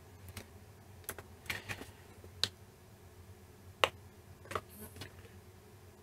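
Sparse light clicks, about eight spread over six seconds, from handling a FrSky Horus X10S Express RC radio transmitter's plastic case and controls.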